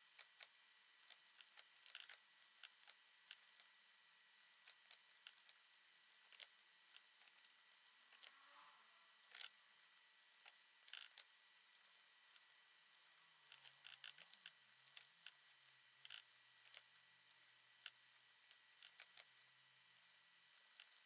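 Faint, irregular clicks of a computer mouse against near silence, a dozen or more scattered through the stretch.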